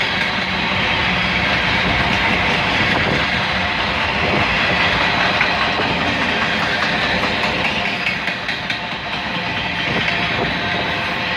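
Mixed freight cars of a Union Pacific manifest train rolling past close by: a steady, loud rumble of steel wheels on the rails.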